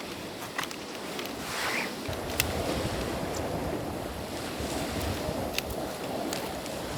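Wind blowing hard, with lake waves washing against the shore, and a few sharp clicks.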